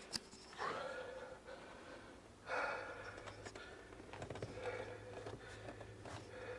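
A man breathing heavily after exercise, with two louder breaths about half a second and two and a half seconds in and softer breathing between. A short sharp click comes just after the start.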